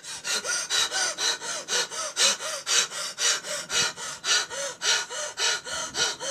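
Rapid, rhythmic panting: quick breaths at about three to four a second, each with a brief tone that rises and falls.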